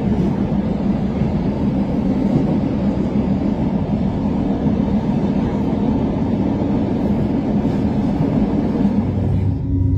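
Zugspitze railway train running steadily, heard from on board: an even, low-pitched running noise of the carriage on the track. The sound changes abruptly near the end.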